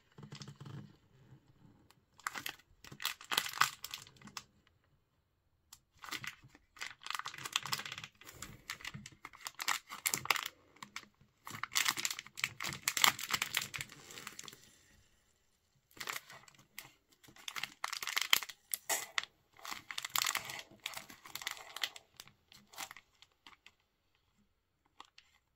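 A foil toy packet crinkling and crumpling as it is squeezed and worked into the top opening of a plastic toy bottle, in several bouts that die away near the end.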